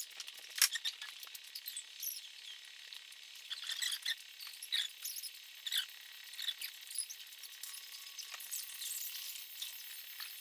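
Scattered light metallic clicks and clinks, irregular and sharp, from hands and tools working on the engine and its lifting chain.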